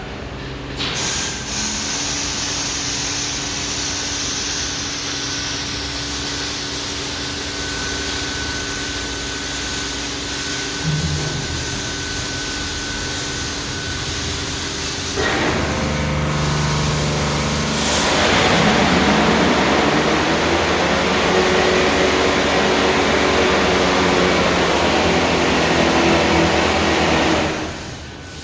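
Touchless automatic car wash machine running: a steady motor and pump hum, joined about halfway by the hiss of high-pressure water jets spraying, which gets louder about two-thirds through.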